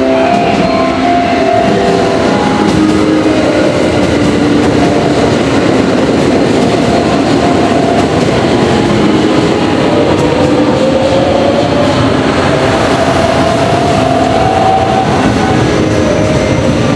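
Electric multiple-unit train moving through the station platforms: steady loud rolling and rumbling noise with wheel clatter. About ten seconds in, a rising electric motor whine can be heard.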